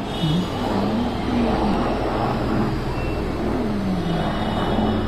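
Helicopter flying overhead: a steady low engine and rotor drone with a slowly wavering pitch above it.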